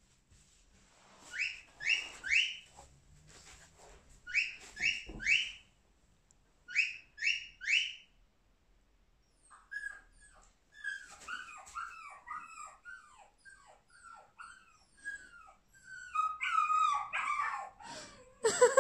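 Dog whimpering: short high rising squeaks in three groups of three, then a fast run of short falling whimpers that grows louder near the end.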